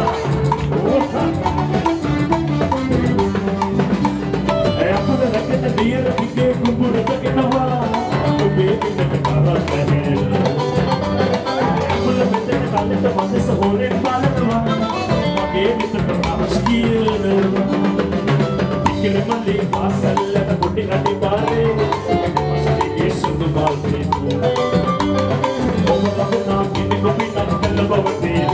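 Live band playing upbeat Latin-style dance music, led by drums and stick-struck percussion, with guitar and keyboard, steady and loud.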